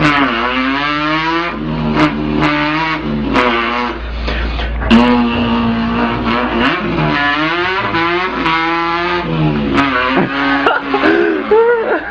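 A man's voice imitating a revving import car engine. The pitch climbs, drops and climbs again as if the car were shifting up through the gears, with one long held note midway and a wavering, burbling pitch near the end.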